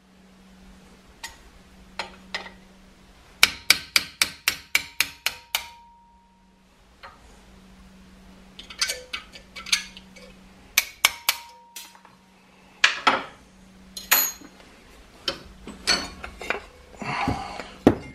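Hammer tapping a steel pin punch to drive the handle pins out of an old meat cleaver's tang held in a bench vise. The sharp metallic strikes come in a quick run of about ten a few seconds in, then more strikes in irregular groups later on.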